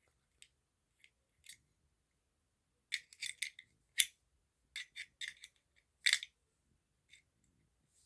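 Small flathead screwdriver scraping and clicking inside a Zippo lighter's metal insert while digging out the cotton wadding. The short, irregular scratches come in clusters, the loudest about four and six seconds in.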